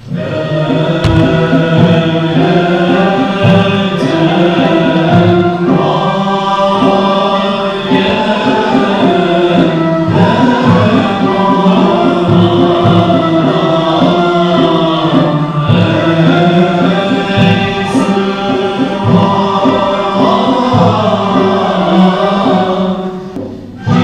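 A Turkish Sufi music ensemble's chorus singing a chanted hymn together, the music for a Mevlevi sema (whirling dervish) ceremony. It starts abruptly at the beginning and runs on with a brief dip near the end.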